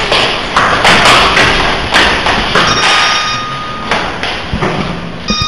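A series of heavy thuds and knocks, irregularly spaced, the loudest about one and two seconds in. A steady high tone sounds for about a second and a half near the middle.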